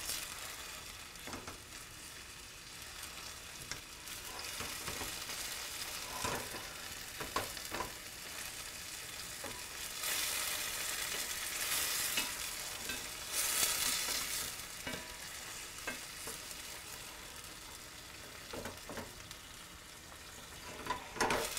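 Onion, celery and peeled tomatoes sizzling in olive oil in a stainless steel frying pan while a wooden spatula stirs and scrapes through them with light knocks against the pan. The sizzle swells louder twice partway through.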